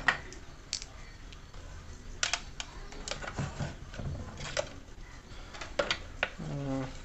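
Scattered light clicks and taps, a dozen or so at irregular intervals: test leads, crocodile clips and wires being handled against the opened plastic housing of a mixer grinder while it is hooked up for a series-lamp test.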